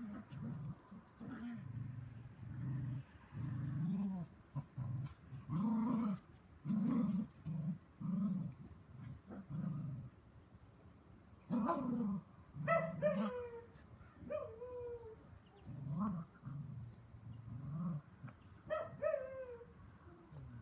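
Cocker spaniel mother and puppies growling in play: short low growls one after another, with a few high, falling puppy yelps partway through and again near the end.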